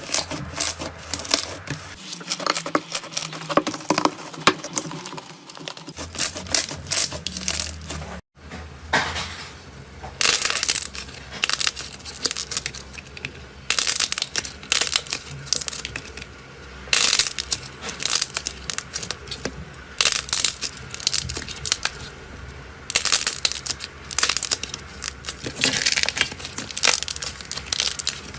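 Slime being squeezed and pulled by hand close to the microphone: dense crackling pops and crinkles, coming in louder bursts of about a second each, with a brief cut about eight seconds in.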